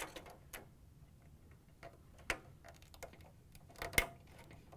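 A few quiet plastic clicks and taps as ribbon cables are pushed into their slots on a dryer's electronic control board and locked in. There is a sharp click about two seconds in, and the loudest click comes near four seconds.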